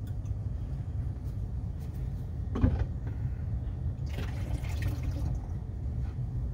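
Water poured from a plastic bottle into a graduated cylinder, then tipped through a funnel into a plastic bottle, measuring water for diluting photographic chemistry. A short knock comes about two and a half seconds in, and a low steady hum runs underneath.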